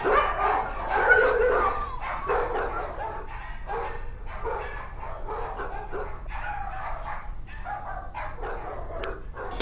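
A dog making a long run of short pitched calls, several a second, louder and more drawn-out in the first two seconds.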